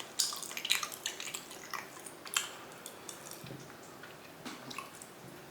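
Chewing raw chicken meat: irregular short clicking mouth sounds, most of them in the first half, thinning out later.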